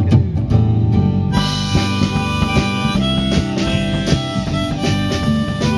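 Instrumental intro of a band song: guitar and drum kit with a harmonica playing long held notes over them, the harmonica's brighter layer coming in about a second in.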